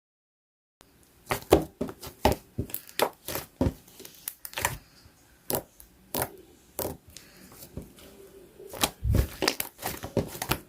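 Golden and pink slime being mixed by hand, giving an irregular run of sharp sticky pops and clicks.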